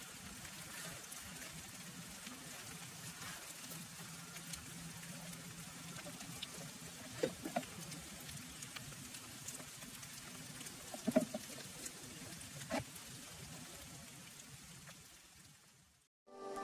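Faint steady outdoor background hiss with a few soft knocks, fading out near the end.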